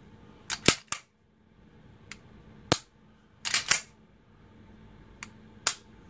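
Sharp metallic clicks from a 1911 pistol's action being dry-fired and cycled by hand: the hammer dropping, the trigger resetting and the slide being worked, as the reset of a freshly tuned trigger is checked. About half a dozen clicks, some single and some in quick clusters, a second or two apart.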